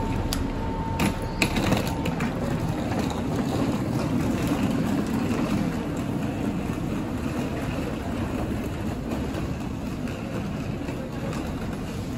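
New York City subway R62A train and station noise: a steady rumble with a few sharp clicks in the first second and a half, slowly easing off.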